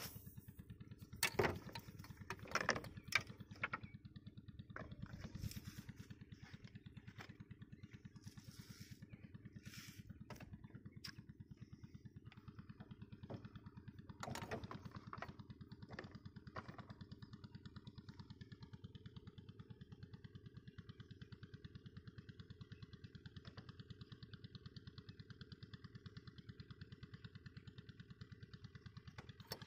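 A small engine runs steadily in the background, a low pulsing drone, with a few sharp clicks and knocks from handling fishing tackle, clustered about one to three seconds in and again around fourteen seconds.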